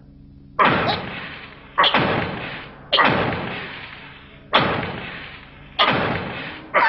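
Cartoon sound effects of a giant club pounding down: six heavy thuds about a second apart, each fading out over about a second.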